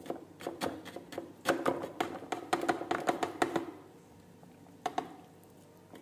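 Raw chicken pieces tipped from a metal mesh strainer into a plastic food-processor bowl: a quick run of light knocks and clicks as the chunks drop in and the strainer bumps the bowl's rim, lasting about three and a half seconds, then one more knock near the end.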